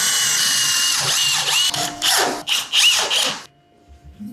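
Cordless drill driver driving a screw through a wooden runner into the spoilboard. It runs with a steady whine, then in two short runs whose pitch rises and falls as the trigger is eased, and stops about three and a half seconds in.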